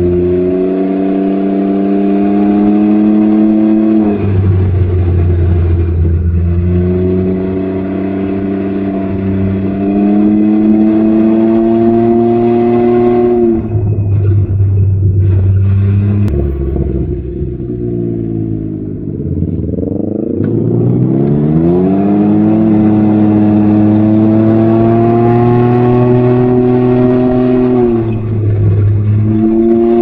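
Can-Am Ryker 900's Rotax three-cylinder engine through an RLS Stealth Series exhaust, heard from the rider's seat while riding. The exhaust note climbs under throttle and falls off when the throttle is eased about 4 and 13 seconds in and again near the end; it winds down in the middle, then rises again.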